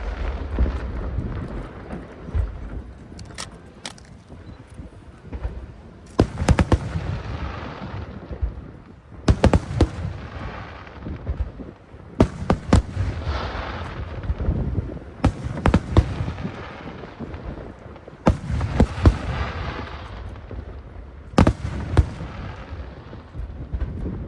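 Large aerial fireworks shells bursting overhead, a sharp bang roughly every three seconds, each followed by a trailing crackle that fades over a couple of seconds.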